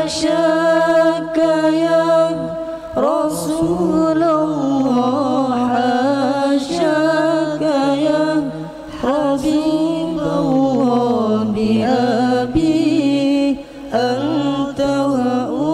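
Male voices singing an Arabic devotional song (sholawat) a cappella into microphones: a long melismatic passage of held, wavering notes with ornamental turns, broken by a few short pauses for breath.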